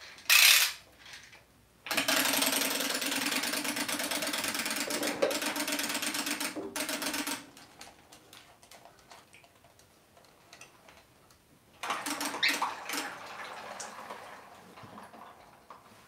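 Small motor of a swimming bath toy buzzing with a fast rattle for about five seconds. A second, fainter stretch of whirring comes a few seconds later as another toy paddles in the water.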